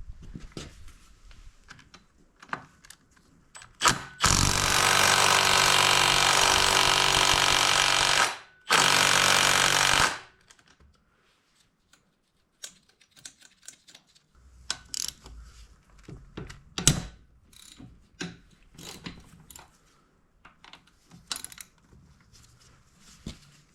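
Power tool, most likely an impact driver, hammering tight cylinder-head bolts loose on a small four-stroke dirt bike engine. It runs in two bursts, about four seconds and then a second and a half, followed by scattered metallic clicks and clinks of tools and bolts.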